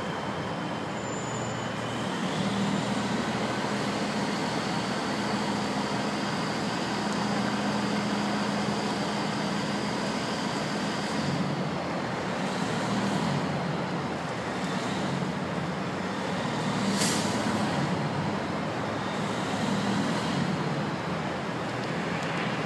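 Diesel engines of heavy recovery cranes running steadily under load while they lift an overturned cement mixer truck upright, with a brief sharp hiss about seventeen seconds in.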